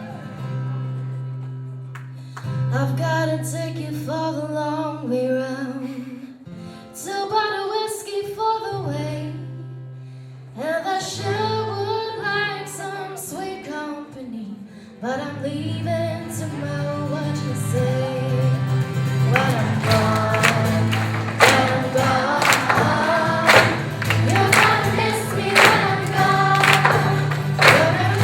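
A song with singing voices over sustained low bass notes; about two-thirds of the way in the accompaniment grows fuller, with a steady beat of sharp percussive strikes.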